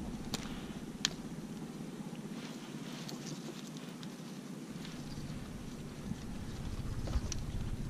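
A low, steady motor hum with wind on the microphone, under light handling noise and a few sharp clicks as fish are worked free of a gill net tangled with rice stalks.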